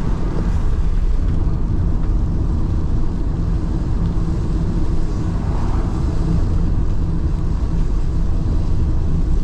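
Car driving along a road, heard from inside: a steady, loud low rumble of engine and tyre noise.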